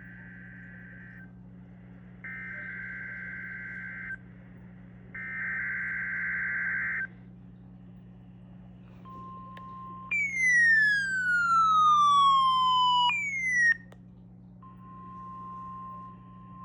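NOAA Weather Radio Required Weekly Test alert tones. First come three bursts of SAME digital header data, each about two seconds long. They are followed by the steady 1050 Hz warning alarm tone. About a second into that tone, a tone-activated weather alert receiver sets off its own loud, siren-like alarm, which falls in pitch over about three seconds and starts again near the end, all over a low steady hum.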